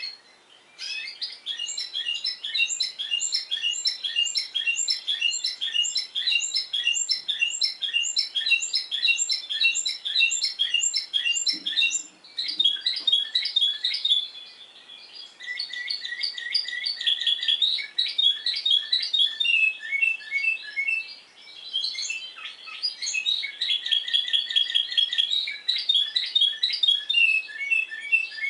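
A Timbrado Español song canary singing in the discontinuous style. Its song is made of rapid runs of repeated notes, each phrase giving way to a new one every few seconds.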